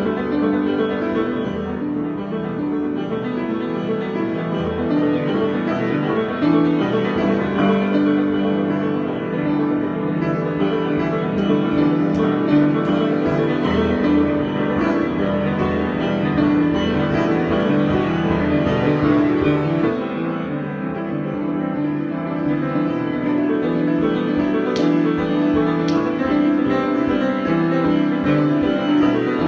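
Piano played in a slow, continuous improvisation, with held chords and shifting sustained notes.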